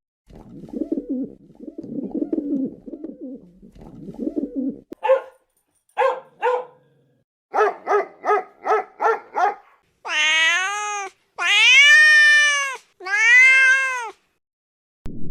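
Domestic cat meowing: three long, loud meows near the end, each rising then falling in pitch. Before them come a low rough grumbling sound and a run of shorter calls, three single ones and then six in quick succession, whose source is unclear.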